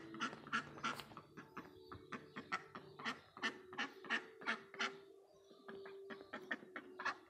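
A domestic duck hen giving quick short quacks, about three a second, with a short lull near the end.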